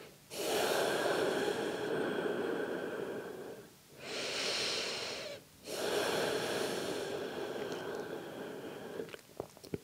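A woman breathing slowly, deeply and audibly: two full breaths, each a shorter breath of about a second and a half followed by a longer one of three seconds or more that trails off.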